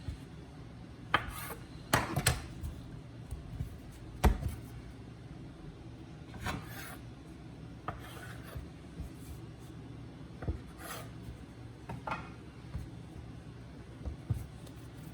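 Hands dividing bread dough and shaping the pieces on a floured marble counter: soft rubbing and brushing, with a few sharper knocks on the counter, the loudest about four seconds in.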